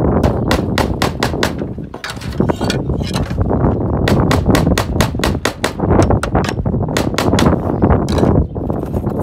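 Slater's hammer nailing round-ended slates onto a chimney's board sheathing: quick sharp taps, about five a second, in several runs with short pauses, stopping shortly before the end. Wind rumbles on the microphone underneath.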